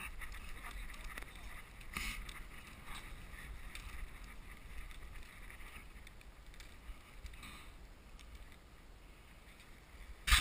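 Faint wind rumble on a helmet-mounted action camera's microphone, with scattered soft knocks and rustles.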